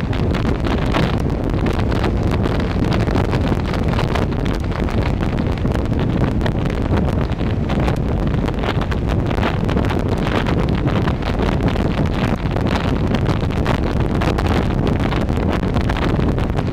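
Wind buffeting the microphone of a large scooter riding at road speed, loud and steady, with the scooter's engine and tyre noise underneath.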